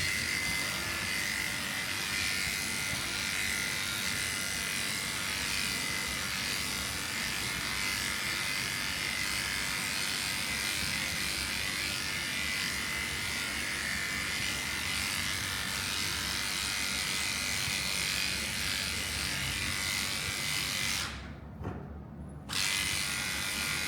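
Electric pet grooming clippers running with a steady buzz while shaving a cat; they are switched off briefly near the end, then run again.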